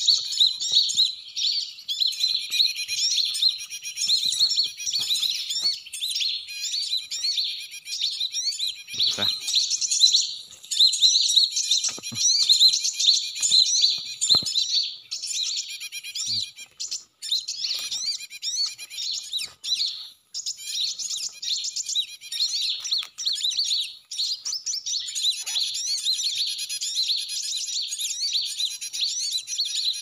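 Dense, continuous chirping and twittering of many small birds, with a few short breaks and a few faint soft knocks.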